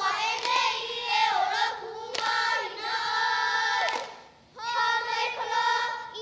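Children's voices singing a Hawaiian hula chant in unison, with one long held note about two seconds in, a short break about four and a half seconds in, then the chant resumes.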